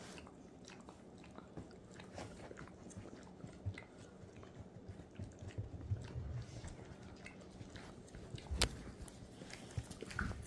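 A dog licking another dog's ear: faint, irregular wet licking and lip-smacking clicks, with two soft thumps near the end.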